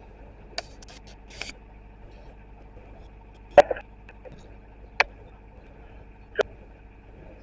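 Narrowboat's engine running steadily under way, a low even hum, with a handful of short sharp clicks and knocks scattered through it.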